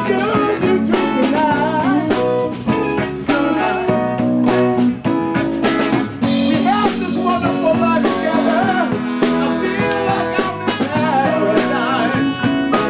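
Live blues band playing, with a drum kit and electric guitar over bass and a lead line that wavers in pitch.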